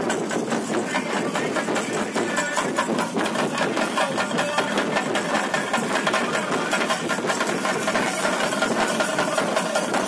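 Chenda drums beaten with sticks in a fast, unbroken roll, the percussion that accompanies a theyyam dance.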